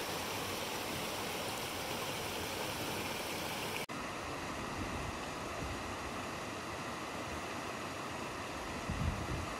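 Steady rush of a rocky mountain river and stream running over stones, with a momentary drop about four seconds in and a short low rumble near the end.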